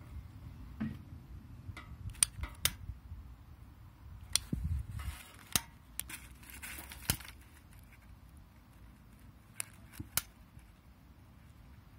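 Piezo igniter of a blue long-nosed butane utility lighter clicking repeatedly, about eight sharp clicks spaced irregularly, with a brief hiss near the middle; the lighter is not yet catching.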